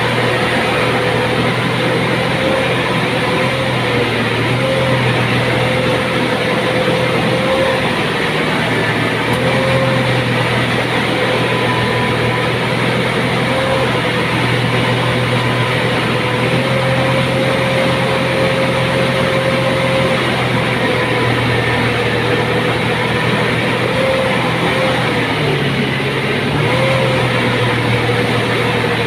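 Engine running steadily for the whole stretch, with a whine that wavers slightly in pitch over a dense mechanical din.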